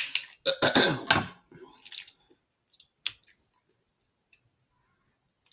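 Scissors snipping and cracking through a snow crab leg shell, in a cluster of crunchy bursts during the first second and a half. A few faint clicks of shell follow as the meat is worked out.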